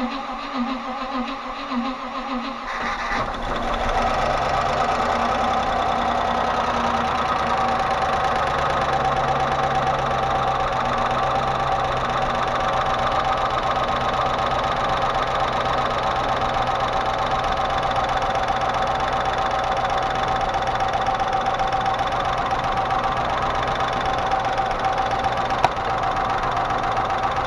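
Range Rover Classic's 3.5-litre Rover V8 being cranked, catching about three seconds in and then idling steadily on its first start after reassembly. A knock from the valvetrain runs through the idle, which the owner puts down to the hydraulic lifters tapping.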